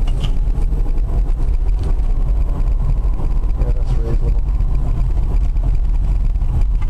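Steady low rumble of road and wind noise inside the cabin of a BMW converted to electric drive, on the move at motorway speed.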